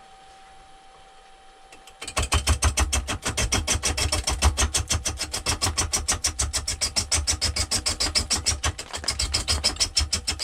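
Lathe gouge roughing down a spinning, out-of-round poplar log: a loud, fast knocking and scraping, about eight hits a second, starting about two seconds in, as the tool strikes the high spots of the oval blank on each turn. Before the cut, only the lathe's faint hum.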